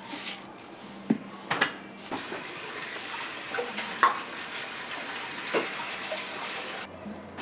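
Kitchen tap running steadily, then shut off sharply near the end, with dishes and utensils clinking and knocking several times.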